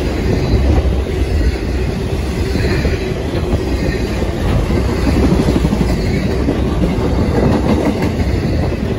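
Intermodal freight train cars rolling past close by: a loud, steady rumble of steel wheels on the rails, with many quick clicks as the wheels run along the track.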